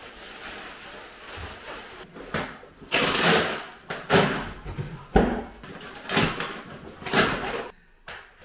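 A run of knocks and scrapes, about one a second, from flat-pack furniture parts being handled and fitted together during assembly.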